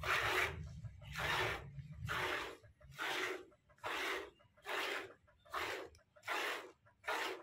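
Milk squirting from a desi cow's teat into a plastic bucket during hand-milking: nine short, evenly spaced squirts, a little more than one a second.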